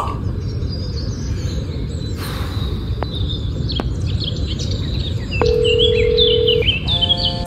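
Wind and birds chirping in an open field. About five seconds in, one steady telephone tone sounds for about a second. Near the end, a chord of electronic phone tones begins.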